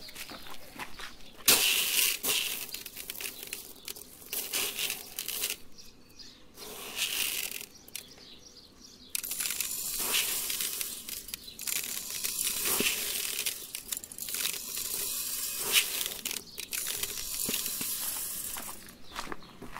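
Handfuls of plastic airsoft BBs rattling and clicking in a plastic bucket and against the metal tip of a Yoshimura RS-3 motorcycle muffler as they are pushed into the exhaust outlet. The noise comes in spells, with a lull a little before halfway.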